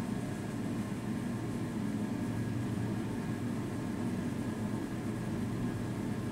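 Domestic cat purring steadily while being scratched under the chin: a continuous low rumble.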